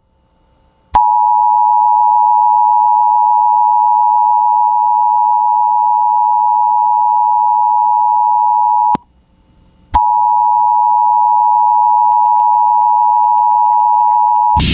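Emergency Alert System attention signal: the steady two-tone alert tone (853 and 960 Hz played together) sounds for about eight seconds, stops for about a second, then sounds again for about five seconds.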